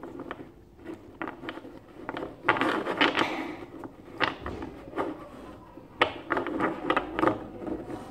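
A stack of football trading cards being handled and shuffled into order by hand, giving irregular card flicks, taps and rustles, busiest near the middle and again towards the end.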